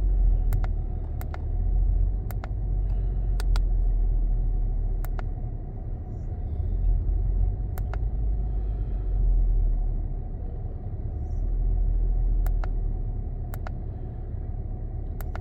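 2005 Acura TL's 3.2-litre V6 idling roughly, its low rumble swelling and sagging every few seconds, with sharp clicks at irregular intervals. The engine is misfiring at idle.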